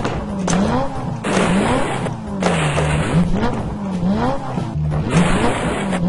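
Revving engine sound effects, the pitch falling and rising over and over, with several bursts of rushing noise like spinning tyres.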